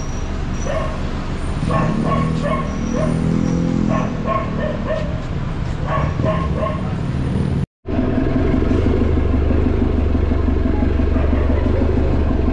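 A dog barking repeatedly in short calls. After a sudden cut about eight seconds in, a vehicle engine running steadily.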